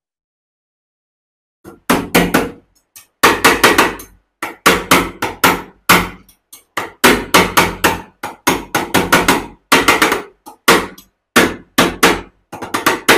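A hammer tapping hard, metal on metal, on the jaws of a pair of pliers clamped in a steel bench vise. The blows come in quick clusters of several strikes with short pauses between them, starting about two seconds in.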